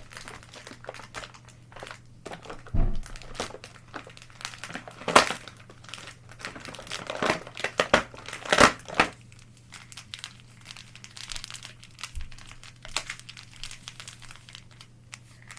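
Small plastic packets from a slime kit being handled and crinkled, with irregular crackling that is loudest about five seconds in and again around eight to nine seconds.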